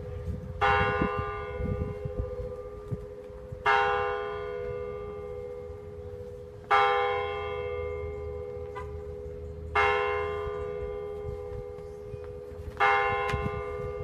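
Mission church tower bell tolling slowly: five strikes about three seconds apart, each ringing on and fading before the next. It is rung in celebration of a canonization.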